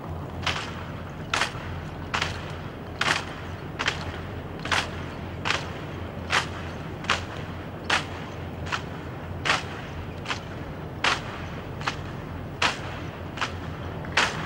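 Rifle drill: hands slapping and catching 1903 Springfield rifles in an evenly paced cadence, a sharp crack about every 0.8 seconds, some eighteen in all, over a steady low background hum.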